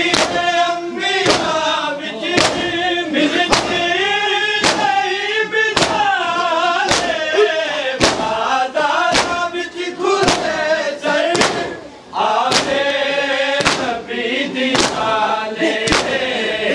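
Men chanting a noha lament in unison. A sharp slap of group chest-beating (matam) lands about once a second and keeps time with the chant.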